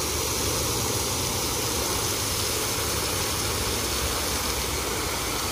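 Steady rushing hiss of a water jet spraying.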